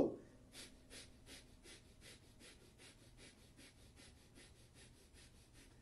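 A man doing breath of fire, the kundalini yoga technique of rapid rhythmic breathing pumped from the navel: a faint, even run of short, airy breaths, about five a second, starting about half a second in.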